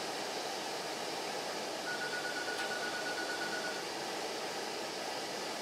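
Steady rushing hiss of background noise in the kitchen, with one steady high tone lasting about two seconds that starts about two seconds in.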